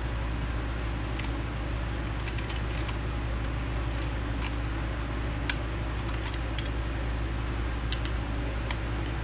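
Scattered small metal clicks and taps of a wrench and screwdriver working the adjusting screw on a carburetor's accelerator-pump arm linkage as it is loosened, over a steady low hum.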